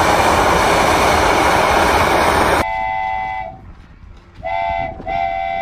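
Steam locomotive venting steam with a loud, steady hiss that cuts off abruptly after about two and a half seconds. A train whistle then sounds three toots, the last one the longest.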